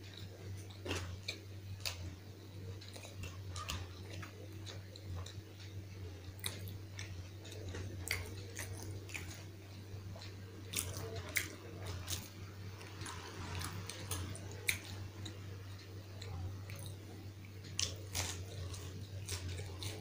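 Close-miked eating sounds: a person biting and chewing fried pakodas and sweet rice eaten by hand, with many small wet mouth clicks scattered irregularly. A steady low hum runs underneath.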